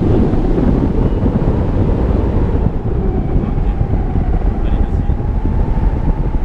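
Wind rushing over the microphone of a camera on a tandem hang glider in flight: a loud, steady, low rush, with a faint steady whistle joining about halfway through.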